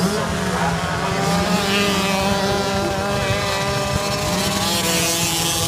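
Small 50cc minibike engines running steadily during a flat-track race, their pitch holding nearly level with slight wavers.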